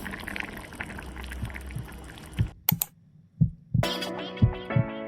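Stew bubbling at the boil, a dense crackle of small pops, cut off abruptly about two and a half seconds in. After a few low thumps, background music with a steady thumping beat and sustained tones begins near the end.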